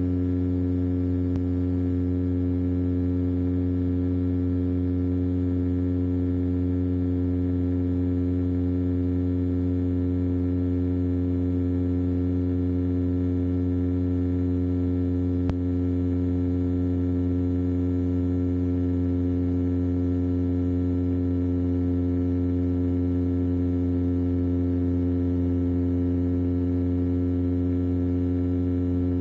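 An engine running at a constant speed: a steady, even hum that does not change, with a faint click about halfway through.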